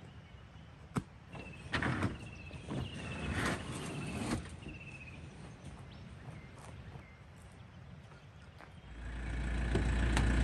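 Knocks and thumps of camping gear being loaded onto a ute's aluminium tray, clustered in the first half, with short high chirps repeating in the background. About nine seconds in, a low rumble comes in and swells.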